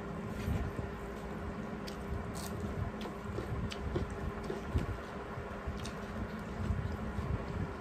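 People eating rice mixed with dal with their fingers: wet squishing of rice kneaded by hand, chewing and mouth sounds, with a few light clicks, over a steady low hum.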